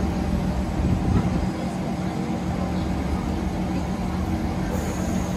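Steady hum of a Singapore MRT train standing at a station platform with its doors open, its onboard equipment running.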